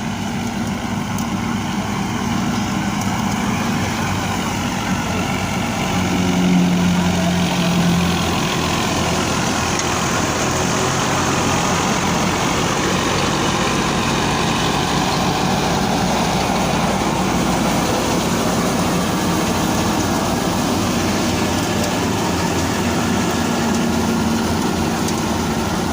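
Heavy engine of a wheat-harvesting machine running steadily, a little louder for a couple of seconds about six seconds in.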